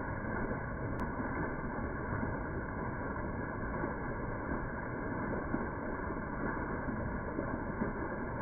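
Creek water falling a short drop over rocks in a small cascade, splashing steadily into the pool below.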